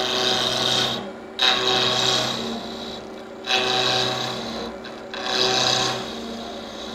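Wood lathe running while a turning tool cuts a maple blank down from square to round: four passes of the tool, each a loud scraping cut into the spinning wood, over the lathe's steady hum. After the last pass, about six seconds in, only the lathe is heard.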